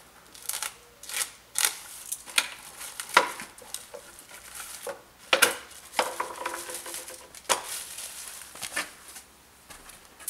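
Irregular clicks, knocks and rustles of hard plastic parts and packaging being handled and set down on a table.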